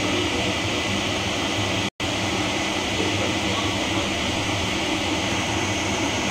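Steady mechanical whirring hum that does not change, cutting out for an instant about two seconds in.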